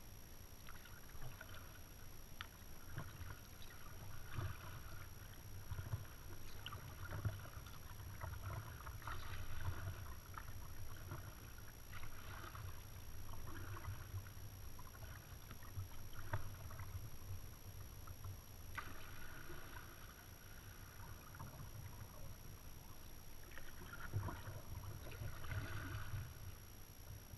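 A kayak being paddled: water splashing and dripping off the paddle blades in irregular strokes every second or two, over a low steady rumble.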